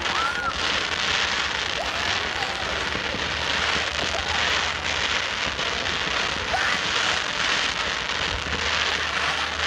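Fireworks display crackling: a dense, continuous patter of many small pops that sounds rather like rain, holding steady throughout.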